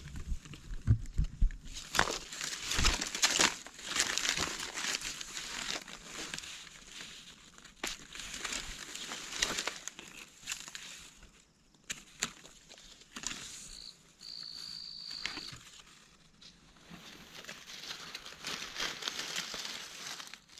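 Irregular rustling and crackling of dry leaf litter and twigs as mushrooms are pulled and handled on the forest floor by gloved hands. A short steady high tone sounds briefly about two-thirds of the way through.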